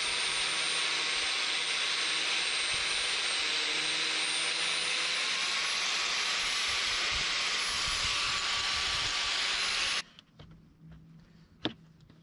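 Angle grinder running steadily with a high whine, cutting through a rubber fender flare strip. It stops suddenly about ten seconds in, followed by a faint click.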